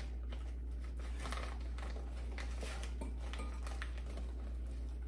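A metal tablespoon scooping and scraping brown sugar, a few soft scrapes and crunches, over a steady low hum.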